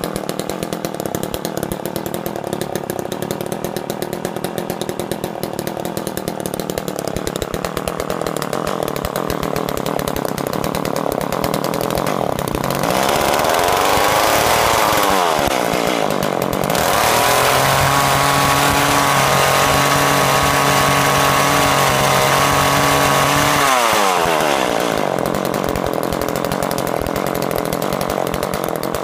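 Small two-stroke engine of a gas-powered Ice Master ice auger idling, then revved twice about halfway through: a short rise and fall in pitch, then held at high speed for about six seconds before dropping back to idle.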